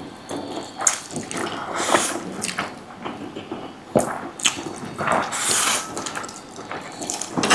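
Wet, squelching sounds of sauce-coated spicy noodles close to the microphone, in irregular bursts, with a sharp click about four seconds in.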